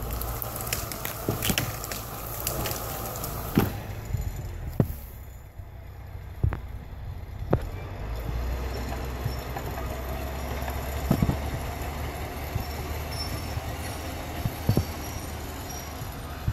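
International Dresser TD8G crawler dozer's diesel engine running steadily, a low rumble with a faint whine over it. A few sharp knocks stand out at irregular intervals.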